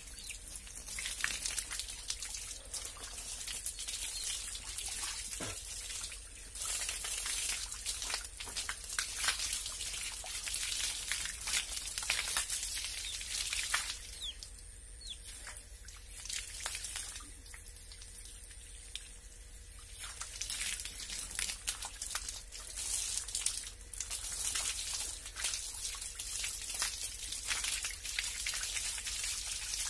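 Water from a garden hose splashing and pattering over a bather's body and onto a concrete floor, in uneven splashes and drips. It eases off for several seconds about halfway through, then picks up again.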